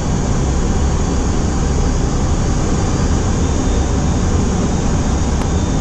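Steady cockpit noise of an Airbus A330 on final approach: airflow and engine noise heard from inside the flight deck, a constant low rumble with a hiss above it.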